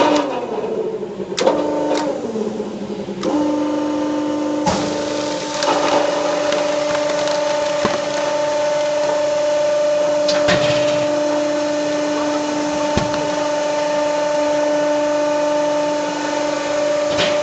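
Vertical baler's hydraulic press running with a steady mechanical whine made of several pitches at once. The pitch drops over the first couple of seconds, then holds, with a few sharp clanks and knocks along the way.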